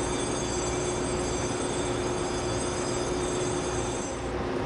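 Steady machinery hum and rumble, with a faint high whine that cuts off about four seconds in.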